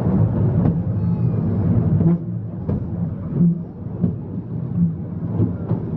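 Winch-hauled incline railway car running down its steep track: a steady low rumble from the wheels on the rails, with sharp clacks every half second to a second.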